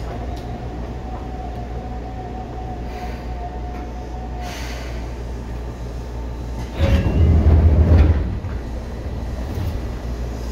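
Seibu 2000 series electric train running, heard from inside the car: a steady low rumble with a thin steady whine that fades out about four and a half seconds in. About seven seconds in, a much louder low rumble lasts about a second and a half, then the steady running noise returns.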